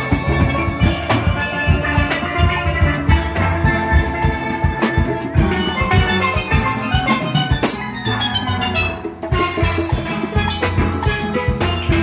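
Steel band playing: steelpans ringing out a melody over deep bass pans and percussion, struck notes in a steady groove. About eight seconds in a quick run of high notes falls in pitch.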